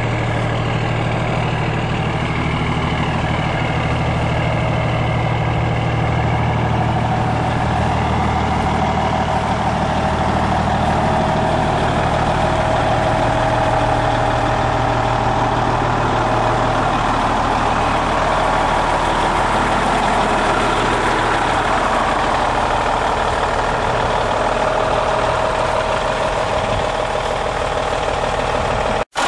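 Kenworth T600 semi truck's Cummins N14 14-litre inline-six diesel idling steadily. The sound cuts out for an instant near the end.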